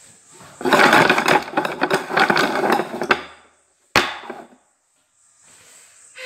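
Upturned bowls shuffled and slid around on a wooden tabletop: about two and a half seconds of scraping and clattering, then a single sharp knock as a bowl is set down.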